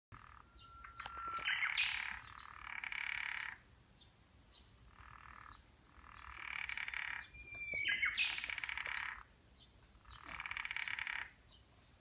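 Wrinkled frog (tsuchigaeru) giving its breeding-season advertisement call: about six pulsed, croaking calls of one to two seconds each, separated by short gaps. A thin steady whistle runs into two of the calls.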